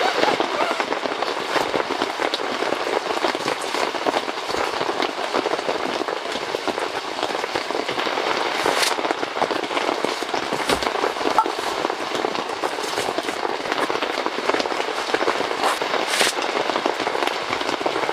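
Heavy rain falling, a dense steady patter with a few sharper cracks standing out, about 9 and 16 seconds in.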